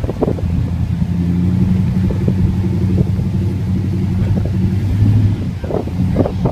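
Pickup truck engine running steadily at low speed, a low even hum, as the truck creeps forward.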